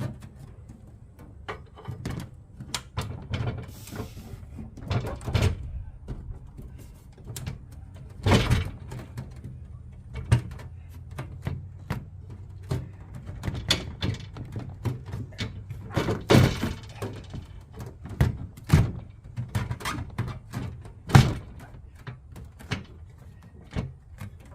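Irregular knocks and clunks of an aluminium storage box being handled and set in place on a van roof, with a few louder thuds, over a steady low hum.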